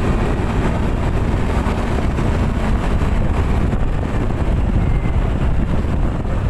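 Motorcycle running steadily while being ridden: a continuous rumble with rushing noise across the range.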